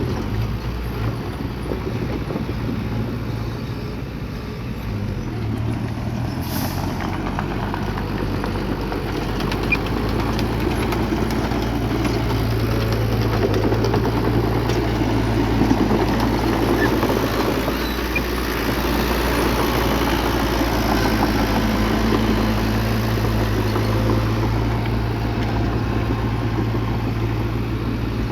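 Bulldozer's diesel engine running steadily, a deep drone with a noisy clatter over it, getting a little louder about halfway through.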